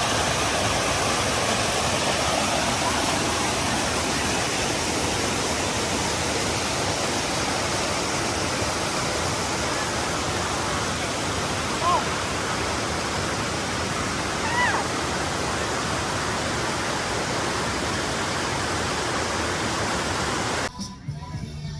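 Steady rushing noise with no pattern, with two short high rising chirps in the middle. It cuts off abruptly shortly before the end.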